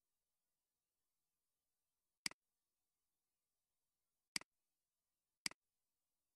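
Three sharp computer mouse button clicks, each a quick press-and-release double click sound, about two seconds in, four seconds in and a second later, with near silence between them.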